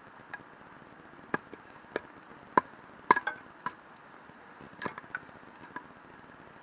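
Campfire crackling: a dozen or so irregular sharp pops and snaps over a low steady hiss, the loudest ones near the middle.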